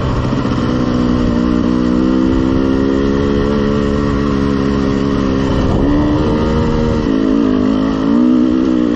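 Two-stroke dirt bike engine running at steady trail speed, heard from on board. Its pitch steps and wavers a few times in the last few seconds as the throttle and gear change.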